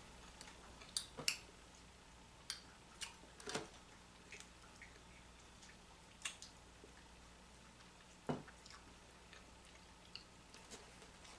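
Scattered light clicks and taps of a glass teapot and small items being handled on a table, with a duller knock about eight seconds in.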